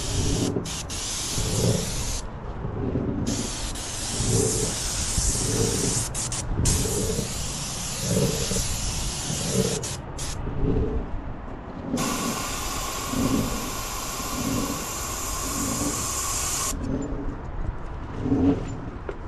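Airless paint spray gun hissing as paint is sprayed, in about four bursts as the trigger is pulled and released, with short breaks between; the last burst runs about five seconds. A low soft pulse repeats underneath about every three-quarters of a second.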